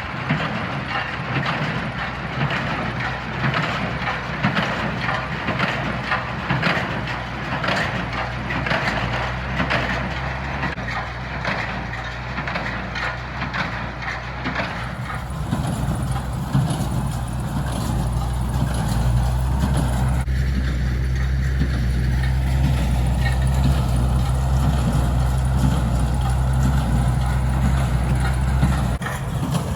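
Farmall 560 tractor engine running steadily while a New Holland 316 square baler rattles along behind it. The engine grows louder about halfway through.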